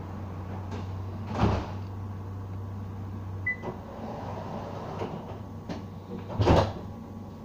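Inside a tram saloon: a steady low hum from the tram, broken by two loud knocks about five seconds apart and a few lighter clicks in between.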